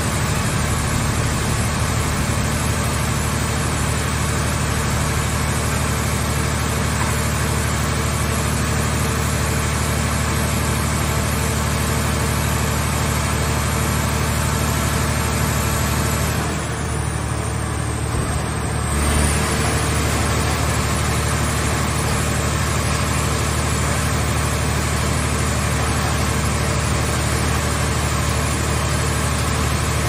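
Scrap car baler's hydraulic power unit running with a steady, loud drone and hiss. About two-thirds of the way through the hiss thins for a couple of seconds and ends in a brief low surge.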